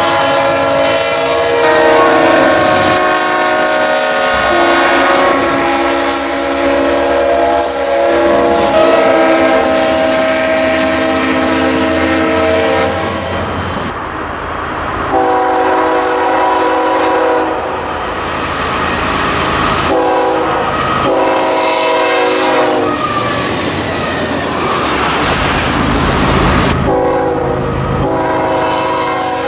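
Diesel locomotive air horns blowing chords, changing every second or two. About halfway through, a diesel freight train's horn sounds a series of blasts, one long and then shorter ones, with the train's rumble and wheels between them.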